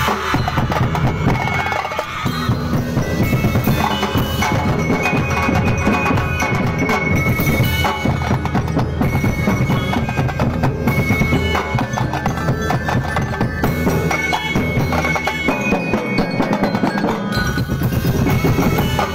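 A mallet-percussion ensemble playing: wooden xylophones and metal glockenspiels struck in fast, dense rhythm over bass drums.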